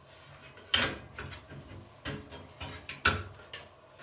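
Steel top frame of a Fractal Design Define S2 Vision PC case being worked into the chassis by hand, the metal clacking and rattling against the case. There are two sharp knocks, one just under a second in and one about three seconds in, with lighter clicks between.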